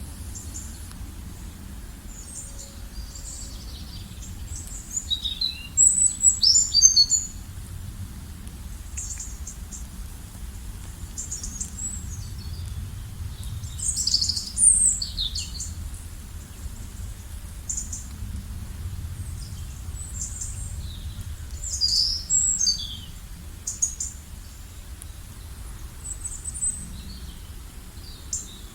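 Wild birds chirping and calling in short high phrases, with bursts of busier song a few times, over a steady low background rumble.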